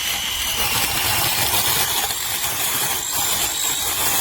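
DocSmart 6-inch brushless cordless mini chainsaw running steadily with a high whine, its chain cutting through hedge branches.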